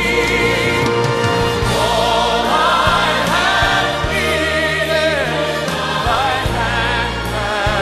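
Gospel music: voices singing in harmony with wavering held notes over a steady bass accompaniment.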